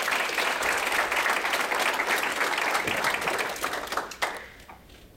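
Audience applauding, dying away about four seconds in with a few last single claps.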